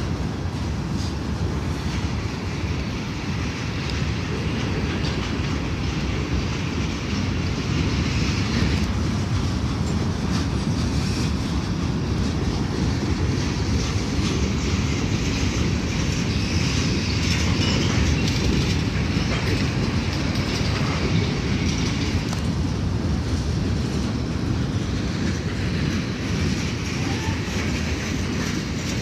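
Norfolk Southern freight train's cars rolling past at speed: a steady heavy rumble with wheels clattering on the rails.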